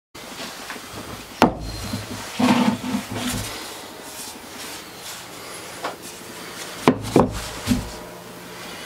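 A large block of oak being handled on a workbench: a sharp knock, then wood rubbing against hands and the bench top as it is turned over, then three quick knocks as it is set down.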